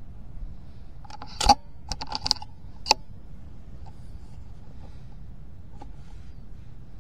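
A single shot from a .177 FX Dreamline pre-charged pneumatic air rifle about a second and a half in, followed by a quick run of clicks and one more sharp click about a second later.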